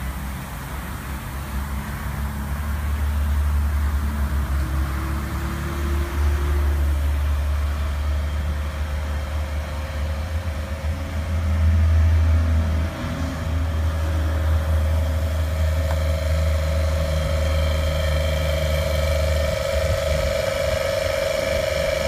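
A motor running with a steady low rumble; a steady whine comes in about eight seconds in, grows louder later on, and carries on after the rumble drops away near the end.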